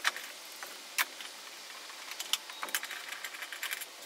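Socket ratchet clicking in short quick runs while undoing the 14 mm front seat-mounting bolts, with a sharp metal click about a second in.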